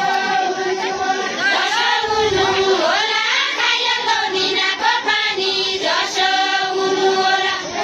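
A group of voices singing a deuda folk song together, unaccompanied by instruments.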